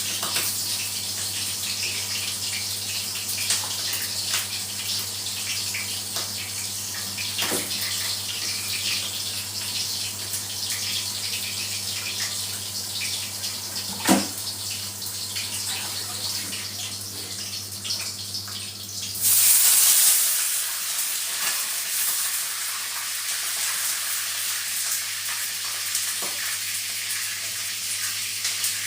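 Kitchen tap water running in a steady hiss, with a single knock partway through. About two-thirds of the way in, the flow suddenly gets louder, then settles back.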